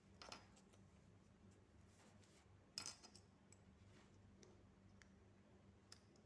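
Near silence with a few faint, short clicks or rustles, once near the start and once nearer the middle.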